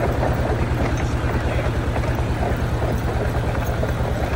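An engine running steadily, a low even throb that does not change.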